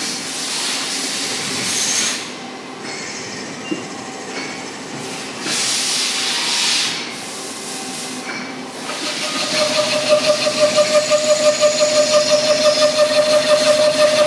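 CNC lathe machining a cast iron pipe fitting. First comes steady machine noise with a few bursts of hissing. From about ten seconds in, a steady whine sets in, pulsing about four times a second.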